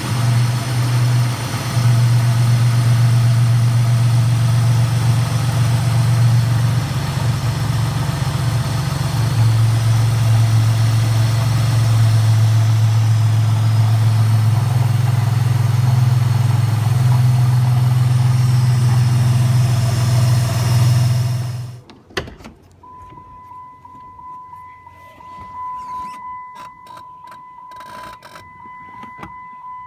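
2007 Dodge Nitro RT engine running steadily, with a strong low hum and a wide hiss over it, while the AC system is recharged after a compressor replacement. About two-thirds of the way through it cuts off abruptly, leaving a quieter stretch of scattered clicks and a thin steady high tone.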